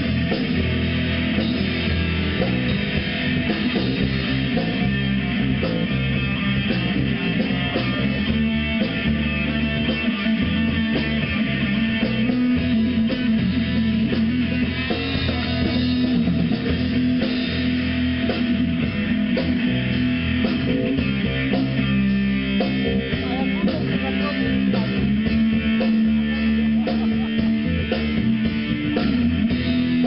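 Live rock band playing: electric guitars over a drum kit, loud and steady.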